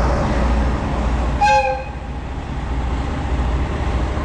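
JR DE10 1207 diesel-hydraulic locomotive sounding one short blast on its horn, signalling departure, about a second and a half in. The steady low rumble of its running diesel engine lies under it.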